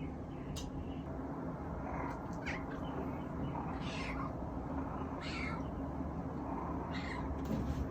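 Munchkin kitten meowing while left home alone: about five short, high calls, one every second or two, over a steady low hum.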